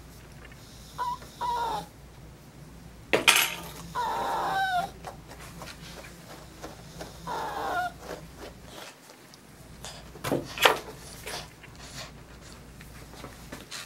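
Maltese dog whining in three short, high, wavering cries as it is combed and brushed, a complaint at the grooming. Two sharp clatters of grooming tools knock in between, the loudest sounds.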